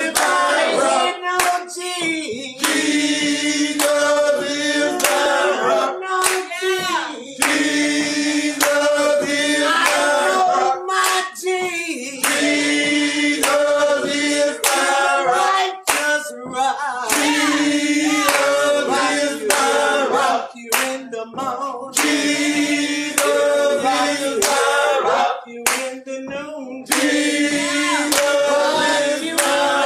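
Gospel choir singing with a band, with sharp hand claps through the singing.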